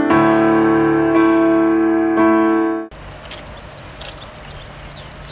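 Electric piano music: sustained chords struck about once a second, cutting off abruptly nearly three seconds in. Steady background noise follows, with a few small clicks and faint bird chirps.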